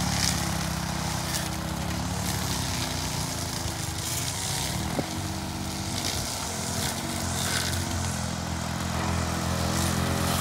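Engine running steadily, its pitch wavering a little, with a single small tick about halfway through.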